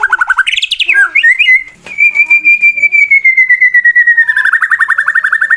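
Male white-rumped shama (murai batu) singing loudly: rapid repeated trill notes, a short rising whistle, then a long clear whistled note that slowly falls in pitch and breaks into a fast rattling trill about four seconds in. A competition bird's aggressive challenge song, the kind used to provoke rival shamas to fight.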